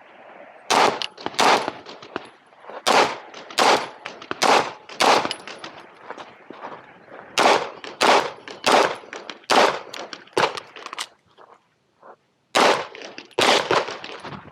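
Sig Sauer P365 pistol firing rapid shots in pairs and short strings, about fifteen in all, with a pause of about a second and a half before a last quick string near the end; the pistol runs without a malfunction.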